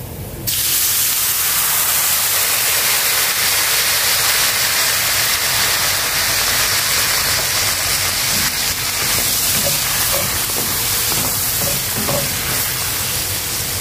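Water poured into hot oil and sautéed garlic in a frying pan: a sudden loud sizzle about half a second in, which carries on as a steady hiss while the water boils in the pan.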